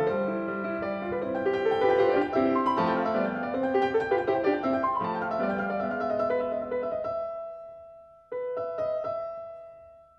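Background piano music: flowing notes that die away about eight seconds in, then a new held chord rings and fades near the end.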